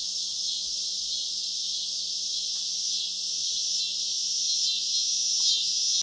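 A chorus of many cicadas buzzing together in a dense, steady, high-pitched drone that cuts off abruptly at the end.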